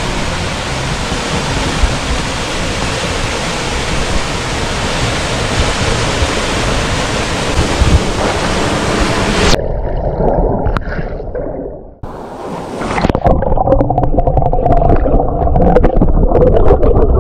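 Small waterfall pouring into a rocky pool, a steady rush of water. About ten seconds in the sound turns suddenly muffled as the microphone goes under the water, leaving a dull underwater churning and bubbling from a swimmer close by.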